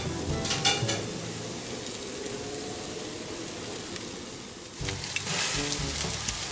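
Chicken kebabs sizzling on a gas grill, a steady hiss with a few sharp clicks in the first second. The sizzle grows louder about five seconds in.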